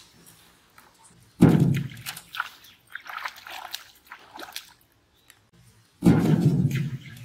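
A hooked fish thrashing and splashing at the pond surface: a sudden loud splash about a second and a half in, smaller splashes after it, and a second loud burst of splashing near the end.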